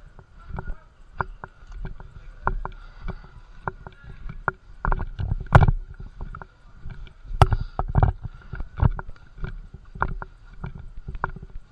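Footsteps and gear knocking against a body-worn camera as an airsoft player walks, an uneven series of thumps and knocks, with two sharper, louder knocks about five and a half and seven and a half seconds in.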